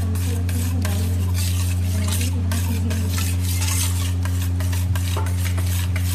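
A utensil stirring a thick mayonnaise-and-cream dressing in a bowl, scraping the bowl in quick regular strokes, about four a second, over a steady low hum.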